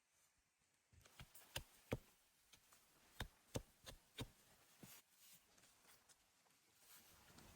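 A run of about eight sharp knocks on wood, irregularly spaced over a few seconds, with fainter rubbing in between.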